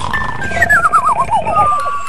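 Cartoon snore-and-whistle sound effect: a low snore fades out, then from about half a second in a wavering whistle slides down in pitch, ending just before the next snore.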